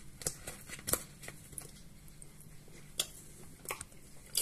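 A metal spoon clicking and scraping against a thin plastic food tray while sauces are stirred and the tray is handled, with scattered light clicks and taps, the sharpest about a second in and about three seconds in.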